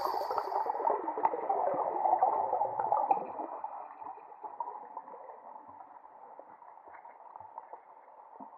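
Underwater sound of sea water gurgling and bubbling, heard through the water, loudest at first and fading away over the second half.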